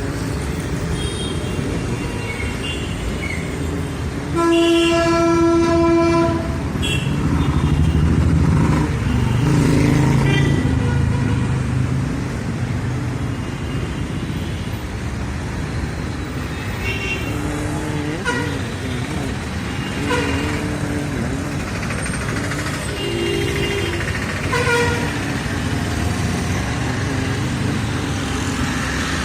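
Busy city street traffic: steady engine and tyre noise with many short horn honks from different vehicles. A long, loud horn blast sounds about four and a half seconds in, and a deep engine rumble swells a few seconds later.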